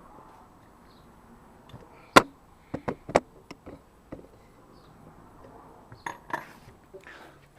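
Metal hand tools clinking and knocking: a sharp clink about two seconds in, a couple more around three seconds, and a few lighter knocks about six seconds in.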